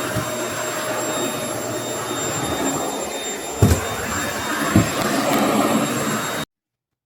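Vacuum cleaner running steadily with a high whine, with a couple of knocks partway through; the sound cuts off suddenly about six and a half seconds in.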